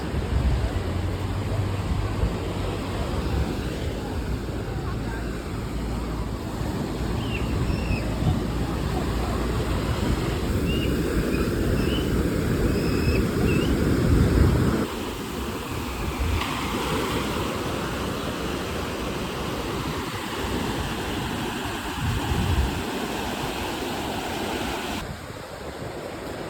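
Ocean waves washing ashore, with wind rumbling on the microphone and a few faint high chirps; the sound shifts abruptly about halfway through and again near the end.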